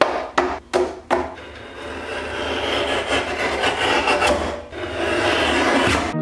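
A stack of paper sheets tapped square on the base of a guillotine paper cutter four times. Then the cutter's blade arm is drawn down through the stack with a long rasping cut, followed near the end by paper sheets sliding and rubbing.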